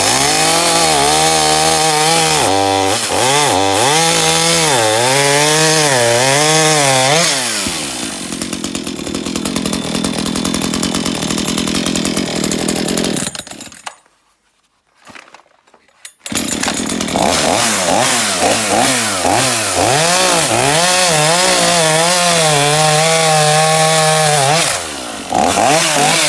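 Makita two-stroke petrol chainsaw with a 45 cm bar, revved up and down in repeated throttle blips. Then it runs steadier and rougher for several seconds as the chain cuts into wood. It drops to near silence for about two seconds midway, then goes back to revving in bursts, with a last short blip near the end.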